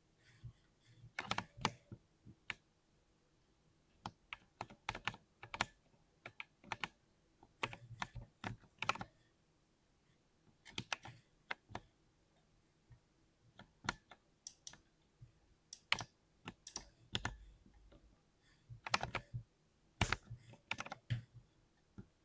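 Mechanical keyboard with lubricated switches being typed on, keystrokes coming in irregular bursts with short pauses between them.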